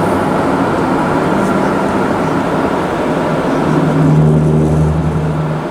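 Intermodal freight train rolling past with a steady rumble of wheels on rail. A low, steady engine drone joins about three and a half seconds in.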